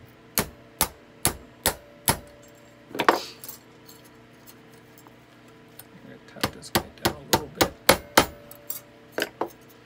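Small hammer tapping a bent-fork snail of flatware against a steel bench block to make it sit flat. Five quick, evenly spaced taps come first, then a louder clatter about three seconds in, and after a pause a faster run of about ten taps.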